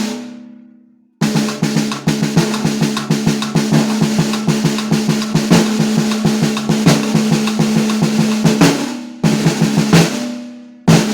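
Premier Olympic 1970s snare drum played with its internal muffler off: a stroke rings out for about a second, then fast rolls and strokes for about seven seconds with the head ringing under them. The drum rings out again before playing resumes near the end.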